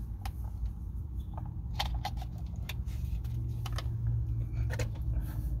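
Scattered small clicks and lip pops from puffing on a tobacco pipe, over a steady low rumble.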